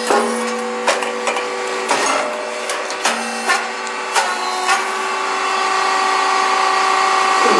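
Rice cake popping machine running: a steady mechanical hum with sharp clicks and knocks about twice a second, which stop after about four and a half seconds, leaving only the hum.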